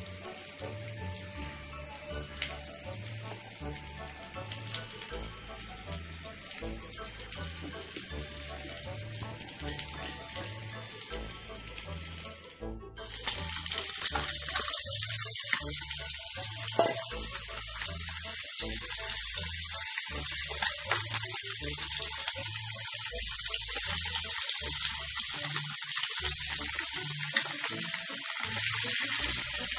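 Background music with a steady beat; about halfway through a loud, steady hiss of a kitchen sound starts and runs on under the music.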